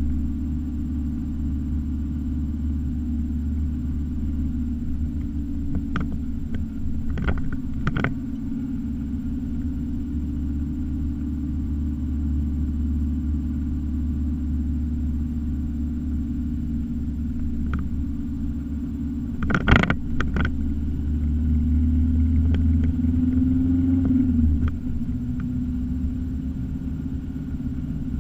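Car driving, heard from inside the cabin: a steady low rumble of engine and tyres on the road, with a few sharp knocks, the loudest about two-thirds through. The rumble grows a little louder for a few seconds, then eases off near the end.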